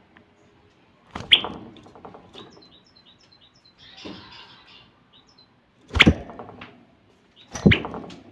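Caged common bulbul giving a run of short, high chirps, with three loud thumps in the wire cage: about a second in, about six seconds in, and near the end.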